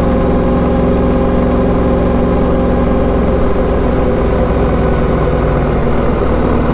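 Motorcycle engine running at a steady pace while riding along a road, with rushing wind and road noise.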